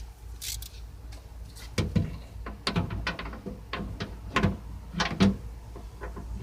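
Ratchet with extension and 10 mm socket working the bolts of a car's outside door handle: irregular metallic clicks and knocks, starting about two seconds in.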